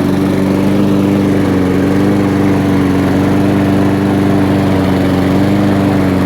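Honda 135cc single-cylinder four-stroke engine on a petrol lawnmower running at a steady speed. This is its first run after more than a year in storage, with no service yet, and it runs well.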